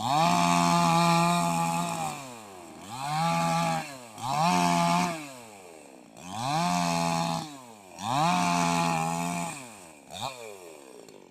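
Gasoline chainsaw engine revved up and let back down to idle about five times, each rev rising in pitch, holding for one to two seconds and falling away, with a short blip near the end.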